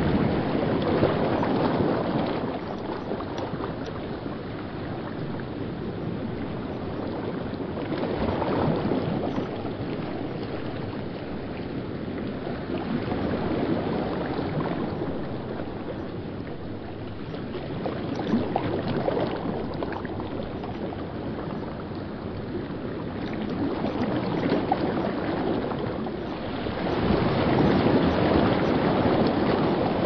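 River white water rushing over rocks against the bank, a steady rush that swells and eases every five seconds or so.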